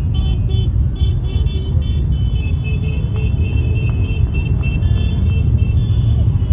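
Many motorcycle engines rumbling together as a procession of bikes rides slowly past. Over them, a string of short high-pitched toots, about two a second, through the first two seconds, then longer held high tones.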